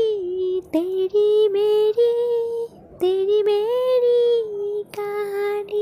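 A high, thin female voice singing without clear words, holding long drawn-out notes that swell slowly up and down in pitch across several phrases.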